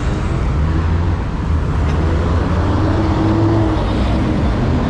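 Heavy rush-hour traffic dominated by the low, steady rumble of chicken buses' engines running at a bus stop, with a faint whine rising and falling about halfway through.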